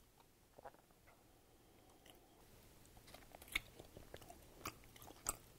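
Faint mouth sounds of a person biting into and chewing a small soft rice cake topped with black sesame cream honey, with a few short sharp clicks in the second half.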